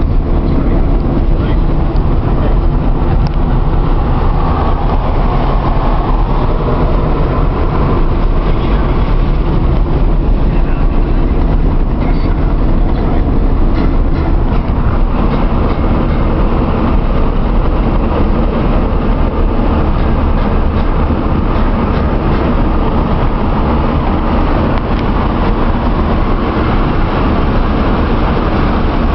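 Steady engine, tyre and wind noise of a car cruising at motorway speed, heard from inside the cabin, with a constant low rumble.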